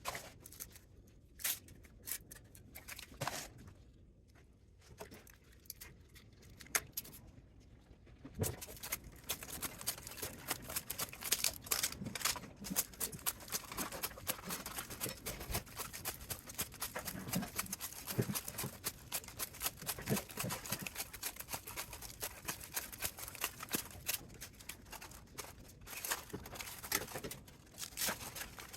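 Thin metal foil winding being peeled off a spot welder's transformer coil, crinkling and tearing. A few scattered light clicks at first, then a dense, continuous crackle from about eight seconds in.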